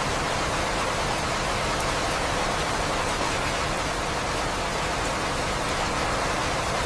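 Steady rainfall, an even hiss with no distinct drops and no thunder.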